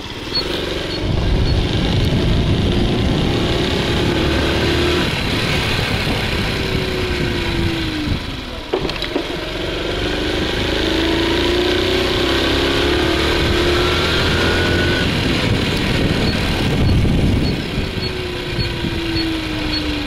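Honda Super Cub C50's small four-stroke single-cylinder engine running under way, its note rising and falling as the rider opens and closes the throttle, with a sharp click about nine seconds in.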